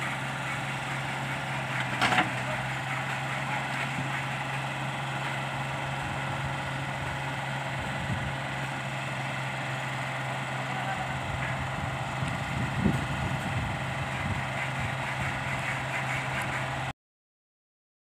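An engine idling steadily, with a sharp clatter about two seconds in and a lighter knock near thirteen seconds; the sound cuts off about a second before the end.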